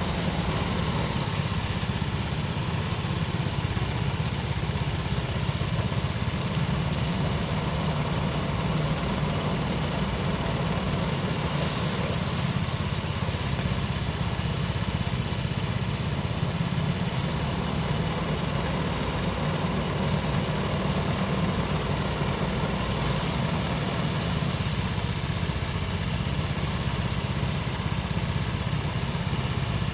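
Engine of a motorised rice thresher running steadily at constant speed, with a brighter hiss rising twice over the hum.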